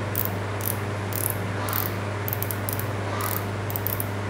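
Drag knob of a Tica Galant GLAT 5000 spinning reel being unscrewed to take off the spool, giving irregular ratchet-like clicks, a few a second.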